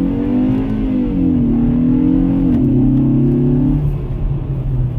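Kia K3 GT's 1.6-litre turbo four accelerating hard at higher rpm, heard inside the cabin together with the ESG sound generator's synthesized engine note through the car's speakers. The pitch climbs, drops about a second in, climbs again and drops once more halfway through, then holds before easing off near the end. At these revs the note is sporty, though the owner finds it too much like a video-game sound.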